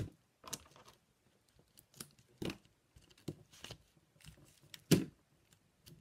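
Hands handling satin ribbon, its spool and cardstock on a craft mat: scattered short paper rustles and light taps, with one loud knock about five seconds in. Scissors are picked up near the end to cut the ribbon.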